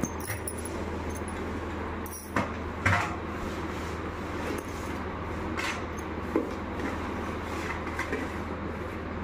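Handling sounds of a school backpack being packed: fabric rustling and a few short knocks as a pencil box and things go in, the loudest two a couple of seconds in, over a steady low hum.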